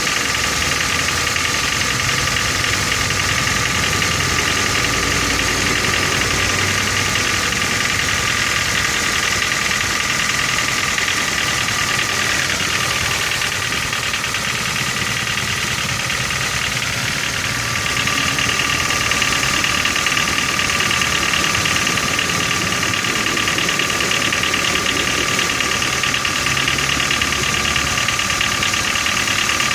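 First-generation Ford Focus 2.0 Zetec inline-four engine running at idle with a steady knock from the engine. It gets a little louder from just past halfway.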